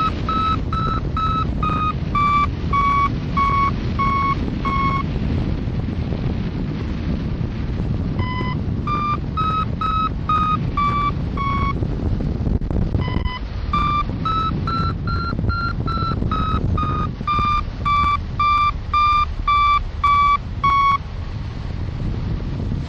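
Hang-gliding variometer beeping, about two short beeps a second, its pitch shifting up and down with the climb rate as the glider climbs in lift; the beeping stops for a few seconds twice. Wind rushes steadily over the microphone underneath.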